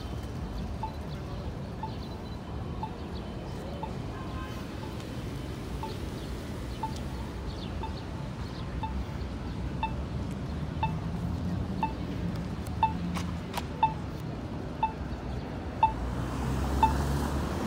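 A short, high electronic beep repeating steadily about once a second, growing louder near the end, over a steady background of street noise.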